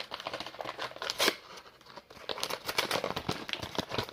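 Packaging being handled and opened, a run of crinkling and crackling with some tearing, one sharper crackle about a second and a half in.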